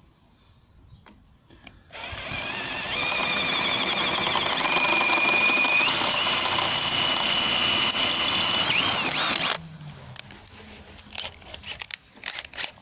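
Cordless drill boring an 8 mm hole through welded steel plate. The motor runs steadily for about seven seconds with a high whine that steps up in pitch partway through, then winds down and stops, followed by a few light clicks.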